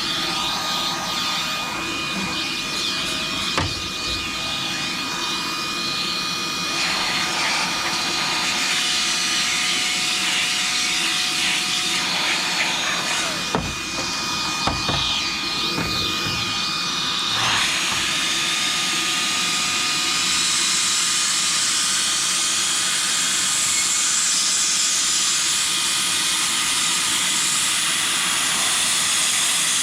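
Cordless blower motor running steadily with a whine and a rush of air as dust is blown or sucked out of a heater; about two-thirds of the way through the airy hiss grows louder and brighter.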